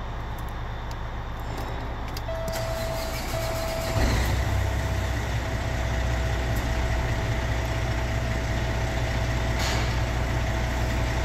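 Caterpillar C15 inline-six diesel truck engine catching and starting about four seconds in, then idling steadily; it is the first start after a partial rebuild with the oil system pressure primed. A steady high whining tone runs alongside from about two seconds in.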